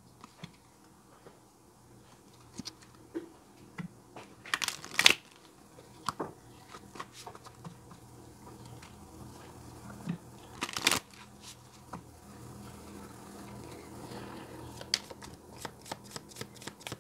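Tarot cards being handled on a table: scattered soft taps and rustles, with two louder brief card sounds about five and eleven seconds in. Near the end the deck starts to be shuffled in a quick run of rapid clicks.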